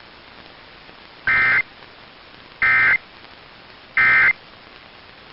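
Emergency Alert System end-of-message (EOM) signal: three short bursts of buzzy SAME digital data tones about a second and a half apart, marking the end of the alert. A faint steady hiss lies underneath.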